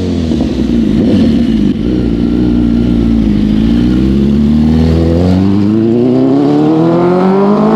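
Sport motorcycle engine running loud. Its pitch sinks over the first few seconds as the revs drop, then climbs steadily as the bike accelerates.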